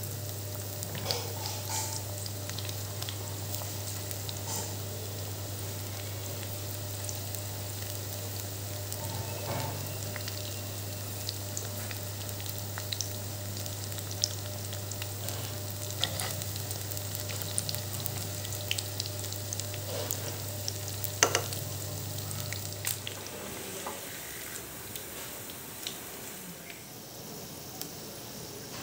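Potato and onion pakoras deep-frying in hot oil in a karahi: a steady sizzle with scattered sharp pops and clicks. A steady low hum runs underneath and stops about 23 seconds in.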